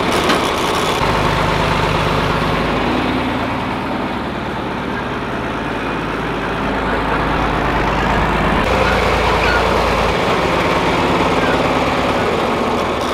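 John Deere farm tractor engine running steadily as the tractor drives off, with a low, even engine drone that shifts in tone about a second in and again about ten seconds in.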